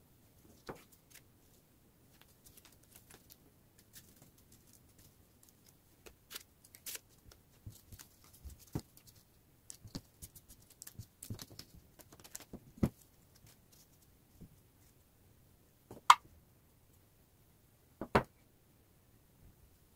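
Hands handling paper stickers and a kraft-paper-wrapped book: scattered light rustles and taps, with two sharper knocks late on, about two seconds apart.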